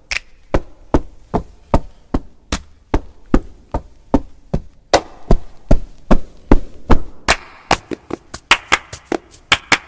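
Typewriter keys striking one at a time: sharp clacks about two and a half a second, quickening to about four a second in the last few seconds.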